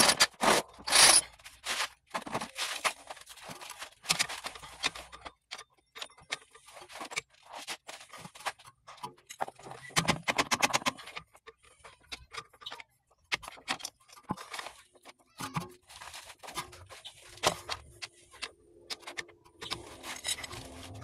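Metal clinks, knocks and scrapes in irregular bursts: a pry bar working at a driver-side CV axle that is seized in the transmission. Near the end a steady low hum comes in.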